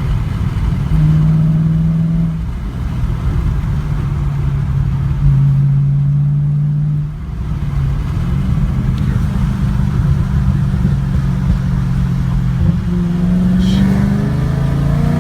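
A 2015 Chevrolet Camaro SS's 6.2-litre V8 pulling under acceleration, its engine note stepping up and down with throttle and gear changes, with a brief lift-off about seven seconds in.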